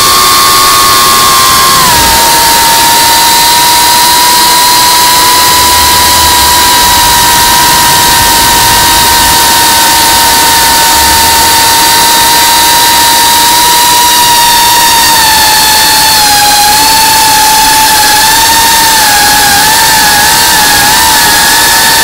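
Geprc Cinelog35 FPV drone's motors and propellers whining loudly and steadily over a heavy hiss of wind. The whine drops in pitch about two seconds in and wavers up and down near the end as the throttle changes.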